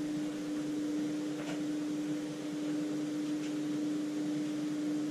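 Steady electrical hum of a running appliance, with a couple of faint soft sounds from a wire whisk stirring a liquid mixture in a metal pot.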